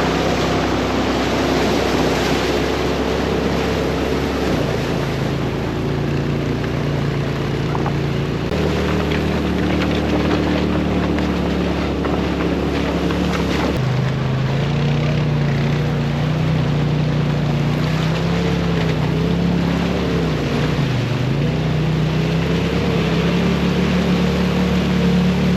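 Side-by-side UTV engine running under way, its steady drone wavering in pitch, with wind and splashing-water noise. The engine pitch shifts abruptly a few times.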